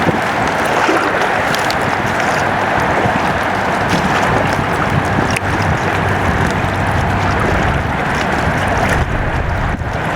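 Steady rushing noise of wind and water out on the river, with wind buffeting the microphone and a low rumble underneath.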